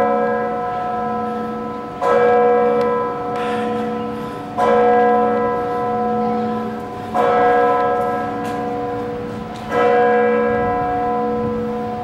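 A church bell in the Bremen Cathedral tower tolling, heard at close range. It strikes about once every two and a half seconds, four times, and each stroke rings on and fades over a steady low hum.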